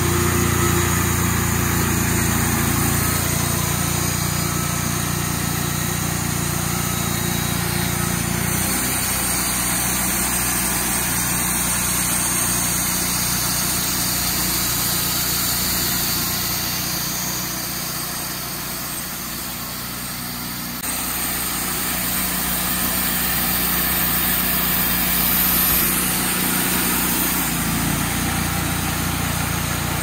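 Wood-Mizer LT40 hydraulic sawmill running as its band saw cuts through a knotty pine log, the engine holding a steady drone. The tone shifts abruptly about 9 and 21 seconds in.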